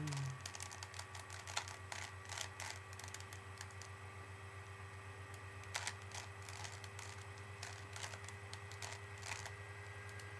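Plastic Rubik's Cube being turned quickly by hand: a steady run of irregular small clicks and clacks as its layers twist.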